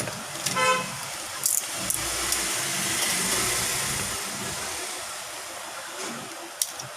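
A vehicle horn toots briefly about half a second in. Traffic noise from a passing vehicle then swells and fades over the next few seconds, with a few sharp clicks.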